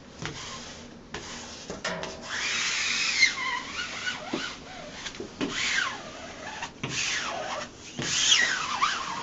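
A squeegee dragged across a peel-and-stick fabric wallpaper mural, about four long rubbing strokes with squeaks that slide down in pitch, pressing the freshly cut seam flat against the wall.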